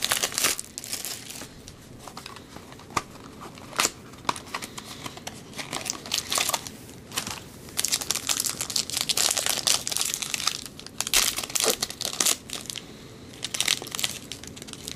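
Clear plastic wrapping on a trading-card box crinkling and tearing as it is pulled open by hand, in irregular bursts of rustling that are busiest in the second half.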